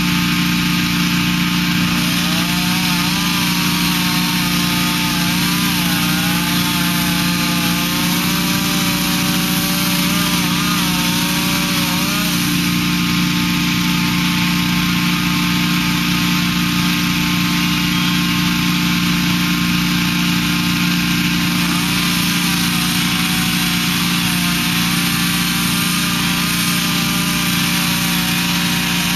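Two-stroke gas-powered fire-service saw running at high speed, cutting through roof shingles and decking to open a ventilation hole; its pitch dips and wavers as the blade loads up in the cut.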